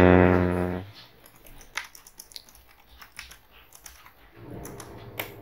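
Typing on a computer keyboard: a scattering of separate key clicks at an uneven pace. At the start comes a low, held hum from a man's voice lasting under a second.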